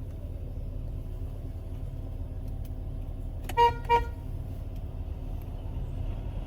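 Car horn giving two short beeps, about a third of a second apart, a little past the middle, over a steady low rumble. The horn is being tested after a repair and now sounds.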